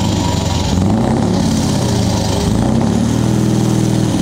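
Scania 660 S truck's 16-litre V8 diesel revved twice through an open exhaust pipe, the pitch climbing and falling each time.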